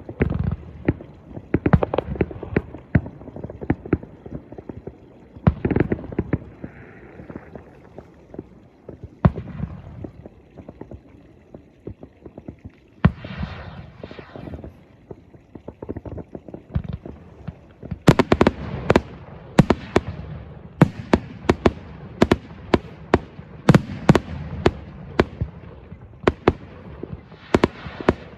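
Fireworks going off: many sharp bangs and crackles, some far off and some close, coming faster and sharper in a dense barrage from about two-thirds of the way in. A short hissing whoosh, like a rocket going up, comes about halfway through.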